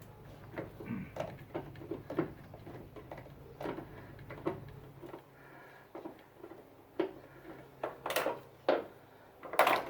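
Light clicks and clatter as the screw holding an aftermarket HID ballast is backed out and the ballast is worked loose, with a few louder knocks near the end as the parts are handled.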